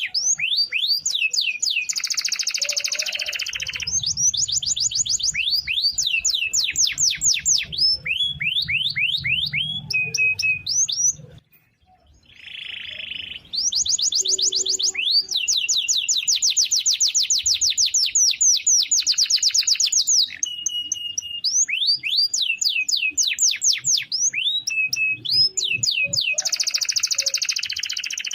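Domestic canary singing a long song of fast rolling trills and rapidly repeated sweeping notes, with a few harsh buzzy phrases mixed in. The song breaks off for about a second just before the middle, then resumes.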